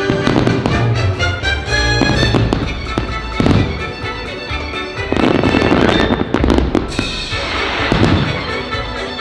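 Fireworks bursting and crackling in quick succession over a loud orchestral show soundtrack, with denser stretches of crackle about five seconds in.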